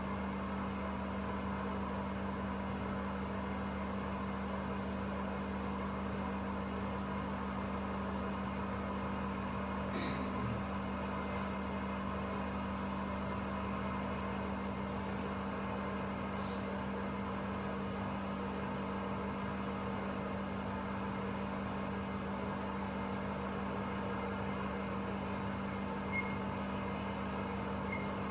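Laboratory seed blower (air-column seed cleaner) running steadily: its fan motor hums with a constant low drone and the rush of blown air, which lifts the lighter impurities away from the seeds. A faint click sounds twice.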